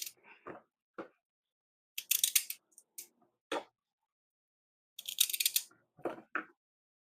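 Kitchen knife cutting raw carrot into small pieces: two short runs of quick crisp cuts, with a few softer knocks between.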